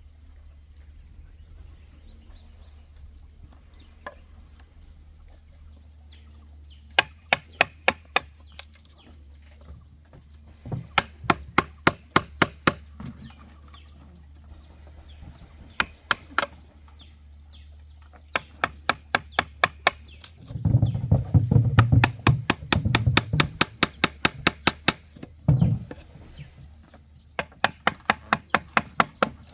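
Quick runs of sharp tool strikes, about five blows a second in groups of five to ten. About two-thirds of the way through there is a stretch of heavier, duller blows.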